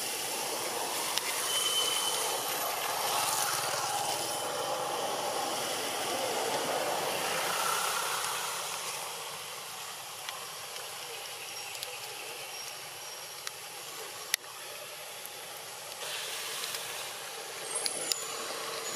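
Steady outdoor background noise, an even hiss without any clear animal calls, with a few brief faint high chirps and a single sharp click a little before the end.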